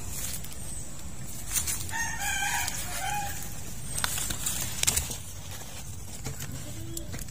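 A rooster crows once, about two seconds in. A few sharp clicks follow near the fourth and fifth seconds.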